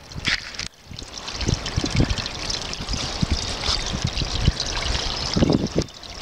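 Creek water running steadily, with irregular low thumps; the sound dips sharply for a moment under a second in.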